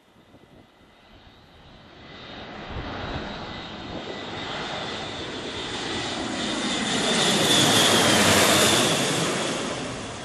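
Airbus A400M's four turboprop engines on low landing approach, growing steadily louder with a high steady whine as it comes in. It is loudest about eight seconds in as it passes overhead, then its pitch drops as it moves away.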